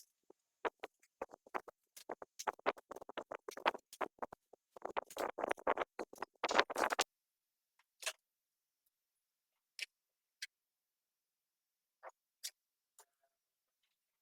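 Sharp clicks and taps, coming thick and fast for about the first seven seconds, then a few single clicks spaced a second or two apart.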